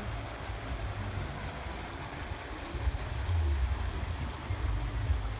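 Steady splashing of small fountains in an ornamental pond, under a low rumble on the microphone that grows louder about three seconds in.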